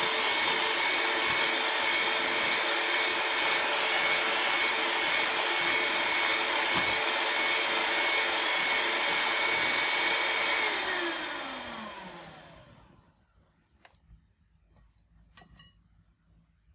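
Electric hand mixer running at a steady speed, its beaters whipping an egg and sugar batter in a glass bowl. About eleven seconds in it is switched off and its whine falls in pitch as the motor spins down, followed by a few faint clicks.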